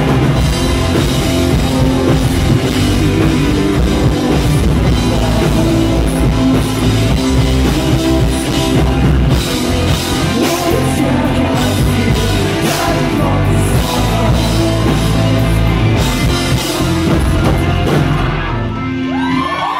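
Live rock band playing with a male lead singer: electric guitars, bass, keyboards and drum kit. The full band drops away about a second before the end.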